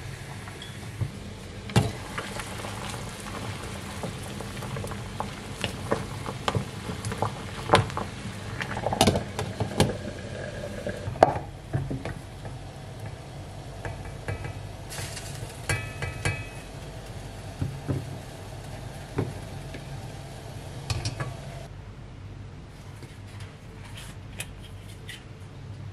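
Water boiling hard in a stainless-steel saucepan, with the wooden cup boiling in it, over many scattered knocks and clinks of the pot, the cup and a plate, some of them ringing briefly. About twenty-two seconds in the boiling hiss stops, and only a few faint clicks follow.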